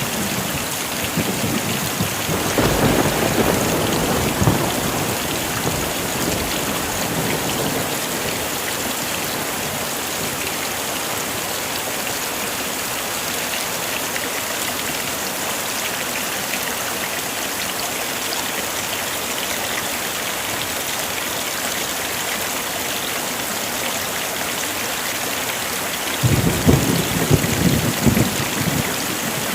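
Heavy rain falling steadily, with a roll of thunder about two seconds in and another near the end.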